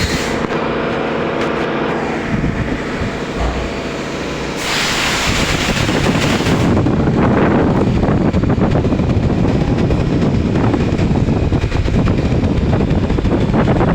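CNC machine running with a continuous mechanical noise, steady tones under it at first. About five seconds in it turns louder and noisier, and stays so.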